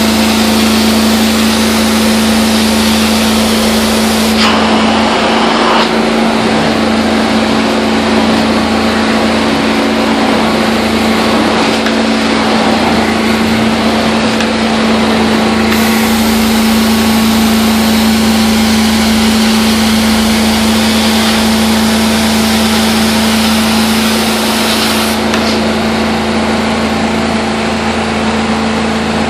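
Carpet steam-cleaning machine running steadily, a loud hum under a rushing hiss of spray and suction. The highest part of the hiss drops away twice and comes back once.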